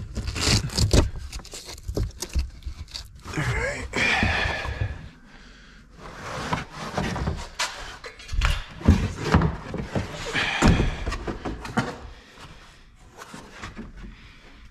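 Car trunk carpet and molded trim panels being pulled out and handled: irregular thunks and knocks with stretches of scraping and rustling.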